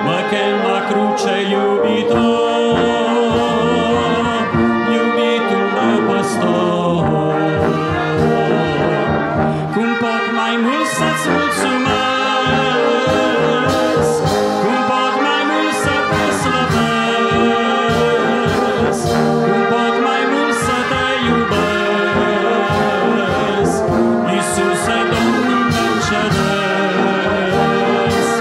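Brass band playing a slow hymn without voices: trumpets, trombones, horns and a sousaphone in held chords, changing steadily from one chord to the next.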